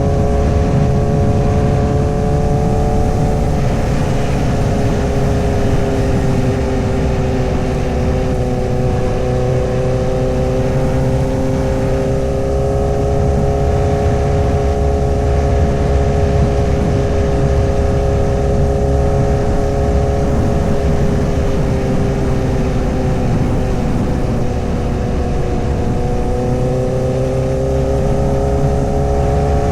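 A 2008 Honda CBR1000RR's 999cc inline-four engine running at a steady cruise under a low rush of wind and road noise. Its pitch eases down a few seconds in, holds, dips again later, and rises near the end.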